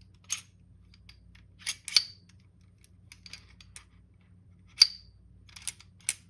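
Steel parts of a Springfield 1911-A1 pistol's slide and frame clicking and clinking as they are shifted by hand to line up the slide-stop holes: irregular sharp metallic clicks, a few with a short ring, the loudest about two and five seconds in.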